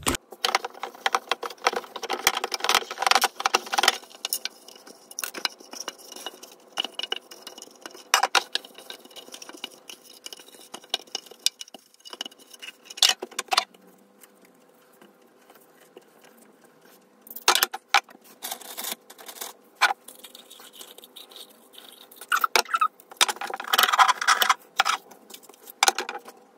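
Hard clear-plastic vanity organizers being handled and wiped clean: a run of light clicks, clacks and rattles of plastic on plastic, with a quieter spell midway.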